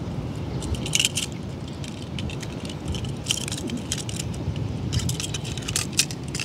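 Small die-cast metal toy cars clicking and clinking against one another as a hand gathers them up, in a few short clusters, over a steady low rumble of wind on the microphone.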